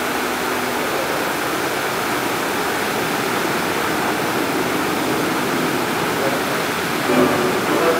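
Steady rushing and splashing of a musical fountain's water jets falling back into the pool. The show's music comes back in near the end.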